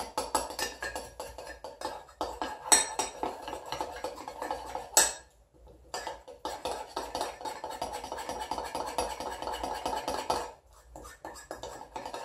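A spoon stirring and scraping quickly in a small dish, clinking against its sides as cacao powder and maple syrup are worked into a paste. The stirring stops briefly twice, about five seconds in and again near the end.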